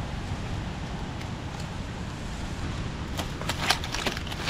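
Wind buffeting the microphone as a steady low rumble, with dry leaf litter rustling and crackling in a few quick bursts in the last second and a half as a mushroom is pulled from the forest floor and handled.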